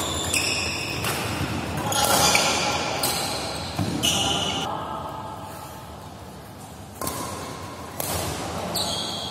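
Badminton doubles rally in a sports hall: sharp racket hits on the shuttlecock every second or so, with shoes squeaking briefly on the court mat and footsteps between strokes.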